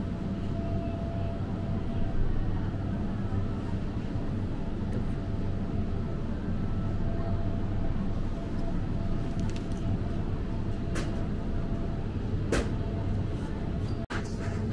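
Steady low electrical hum of a supermarket's open refrigerated display cases, with two sharp clicks in the second half; the sound cuts out for an instant near the end.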